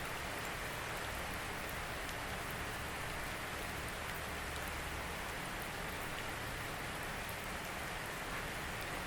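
Steady rain falling, an even hiss of rainfall with faint scattered drop ticks.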